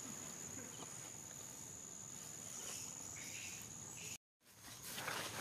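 Steady high-pitched drone of insects such as crickets or cicadas in the grass over faint outdoor background. It cuts out abruptly for a moment about four seconds in, then louder rustling follows.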